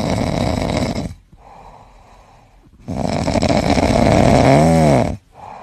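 A sleeping cat snoring loudly: two long snores about two seconds apart with a quieter breath between them, the second ending in a brief rising and falling tone.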